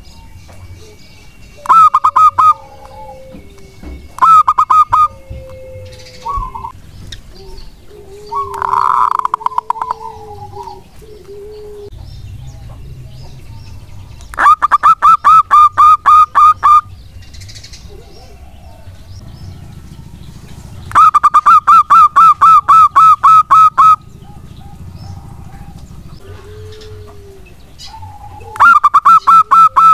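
Zebra dove (perkutut) singing: rapid strings of staccato cooing notes, about five a second. Two short phrases come near the start, then three long bouts of two to three seconds each, with softer low coos between them.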